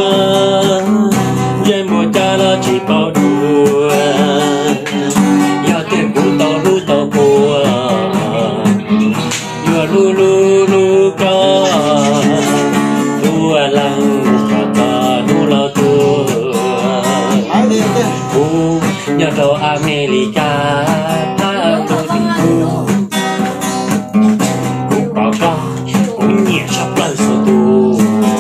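Music: a song carried by an acoustic guitar, plucked and strummed, under a wavering melody line that plays the whole way through.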